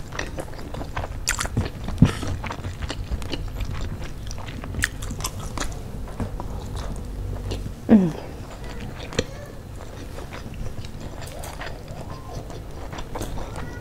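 A person eating spicy sauce-coated fried chicken and rice with their hands: bites, chewing and sharp wet mouth clicks. About eight seconds in there is a short falling hum from the eater.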